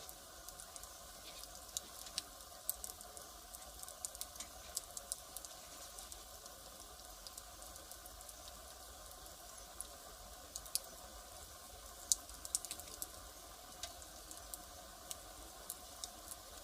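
Firewood fire crackling: irregular sharp snaps and pops over a faint steady hiss, coming in bunches with quieter spells between.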